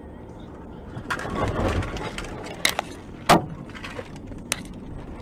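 Car on the road heard from its dash camera: steady road noise, a surge of rushing noise about a second in, then a few sharp knocks and clatters, the loudest a little past three seconds in.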